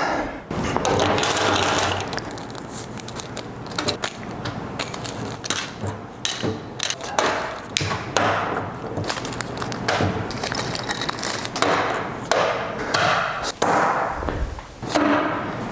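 Small screws and metal parts clinking and small plastic bags rustling, a long irregular run of light clicks and knocks.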